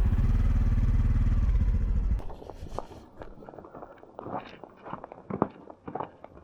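Honda CT125 Hunter Cub motorcycle engine running with a low, even pulse for about two seconds, then cut off abruptly. After that come scattered footsteps and small knocks and scrapes.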